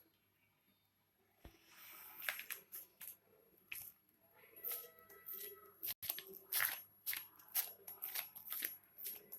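Food being cut or worked by hand during preparation: irregular crisp crunching strokes, one or two a second, starting about a second and a half in.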